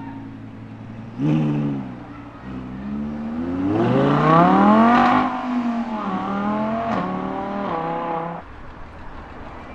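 A car engine blips its throttle once, then accelerates hard with rising pitch, changes gear about halfway through and pulls on before dropping away near the end.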